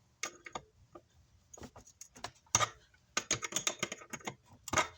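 Pliers clicking and tapping against metal amplifier parts in a quick, irregular series of sharp clicks, thickest in the second half, as they work at a stuck switch.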